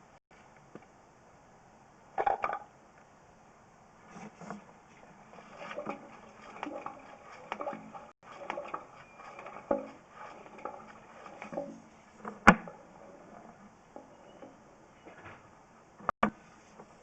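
Irregular knocks, clicks and light rattles, like equipment being handled, with one sharp, loud knock about twelve seconds in and a quick double click near the end.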